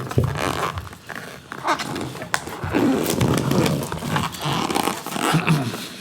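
Cardboard box being cut open with a blade and pulled apart: irregular scraping and tearing, with clicks and short squeaks.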